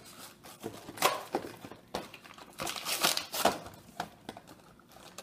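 A toy's cardboard-backed plastic blister pack being torn open by hand: irregular crinkling and ripping of card and plastic, in several short bursts.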